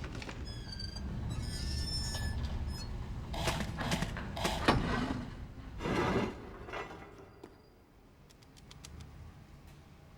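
Animated sci-fi fight sound effects: short electronic beeps and chirps over a low rumble, then several loud sudden whooshing blasts. It fades to a few faint clicks near the end.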